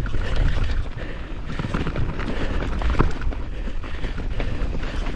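Mountain bike riding over rough, muddy trail: a constant low rumble of wind buffeting the camera microphone, with frequent clicks and knocks from the bike's chain and tyres rattling over the ground.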